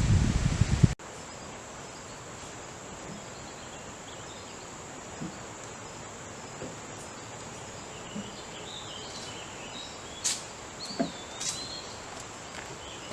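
Wind and rustling on the microphone for about the first second, cutting off suddenly. Then insects keep up a steady high drone in the woods, with a few short bird calls, one a rising-and-falling whistle, in the second half.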